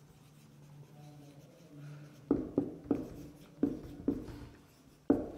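Marker pen writing on a whiteboard: after a quiet start, a quick run of short strokes and taps begins about two seconds in, with one more sharp stroke near the end.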